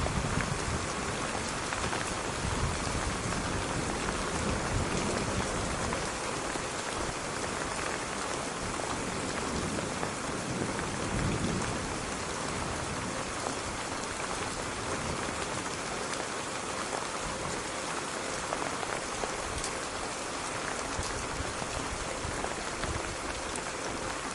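Steady, dense rain pattering on a surface, with a low rumble underneath in the first half that dies away.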